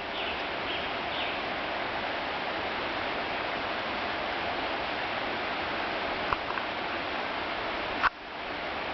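Steady rushing of a mountain creek, with a few faint high chirps in the first second or so and a sharp click about eight seconds in.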